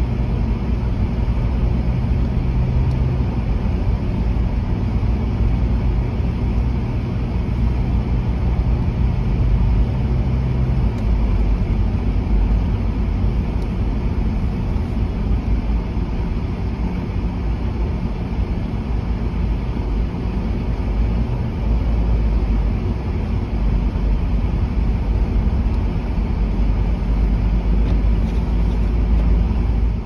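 Steady low rumble of a car driving through a snowstorm, heard inside the cabin: engine, tyres and wind against the body blended together. A steady hum underneath stops about a third of the way in.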